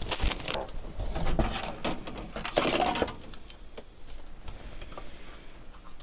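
Handling noise of a Commodore 64 circuit board: clear plastic rustling and crinkling in several bursts over the first three seconds, then fainter clicks and knocks as the board is set in among other boards in a cardboard box.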